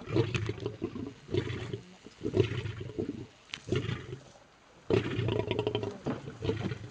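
Lion calling in a string of short, low calls, about one a second, with a longer call about five seconds in.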